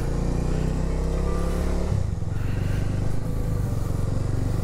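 Bajaj Dominar 250's single-cylinder engine running as the motorcycle rides slowly in town, heard from the rider's seat. Its note rises slightly, then breaks and drops about two seconds in.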